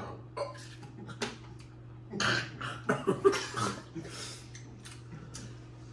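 Scattered short coughs and throat noises from a man whose mouth is burning from very hot sauce, the loudest a little over two seconds in and around three seconds, over a low steady hum.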